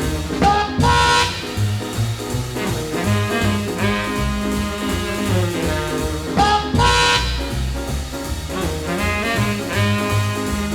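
Instrumental swing jazz music with horns over a steady, pulsing bass beat.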